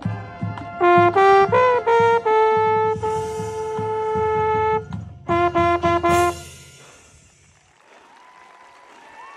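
Marching band brass, led by a mellophone right at the microphone, playing the show's closing phrases: a run of short notes, a long held chord, then a few punched notes and a final cutoff about six seconds in. Faint crowd noise follows and slowly grows.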